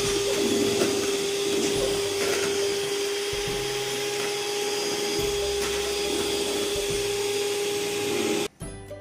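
Electric hand mixer running steadily with a constant whine, its beaters mixing cake batter in a bowl; it cuts off suddenly near the end.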